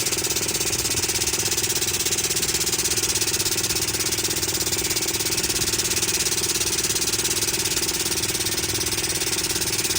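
A machine running steadily, with a fast, even pulse and a steady hum underneath.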